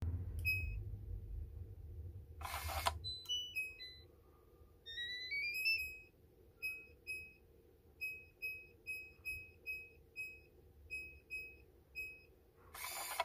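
Samsung SHS-1321 digital door lock sounding its electronic tones: a single beep, a short whirr from the lock, and a short falling chime, then a rising chime as the touch keypad lights up. About a dozen identical short beeps follow as digits are pressed, and near the end another brief whirr.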